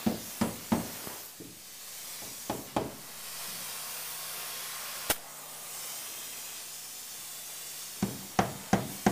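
Soy-based spray foam insulation gun hissing steadily as it sprays foam into the wall cavities. Sharp knocks and clicks come in small clusters, three in the first second and four near the end.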